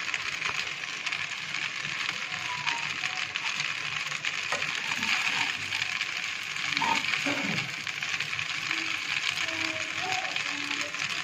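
Pasta in tomato sauce sizzling steadily in a pan over high heat.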